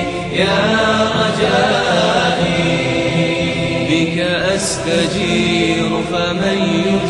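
Vocal nasheed: voices chanting long held notes in harmony that glide from note to note, with no clear words.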